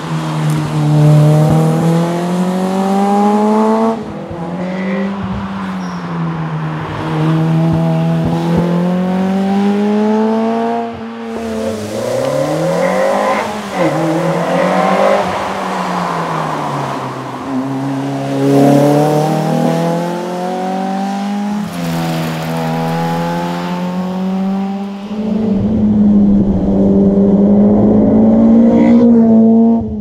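Lotus Elise 111R's Toyota 2ZZ-GE 1.8-litre four-cylinder engine driven hard, revving up through the gears and dropping back for bends, its pitch climbing and falling again and again. Several passes are joined with abrupt changes in the sound, the last few seconds holding a steadier high note.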